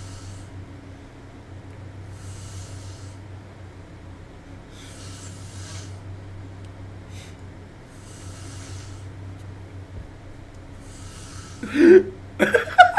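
A sleeping woman's breathing and light snoring, one hissy breath about every three seconds over a low steady hum. About twelve seconds in come a few short, loud voice sounds.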